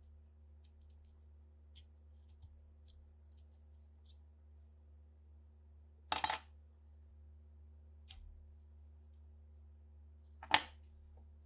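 Small metal parts clinking against a hard surface: a short clatter about six seconds in, a faint clink about two seconds later, and one sharp, louder clink near the end, over a steady low hum.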